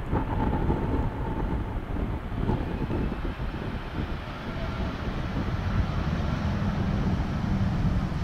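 Boeing 787 airliner's jet engines during the landing flare and touchdown: a steady low rumble, with a faint high whine that fades after about two seconds, growing a little louder near the end.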